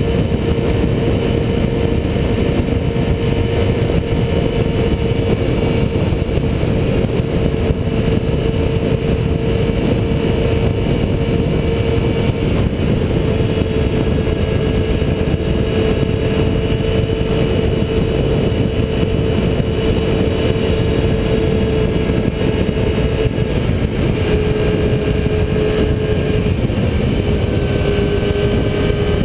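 Motorcycle engine running at a steady highway cruising speed, its hum holding one pitch and stepping a little lower twice near the end, under a heavy low rumble of wind noise on the microphone.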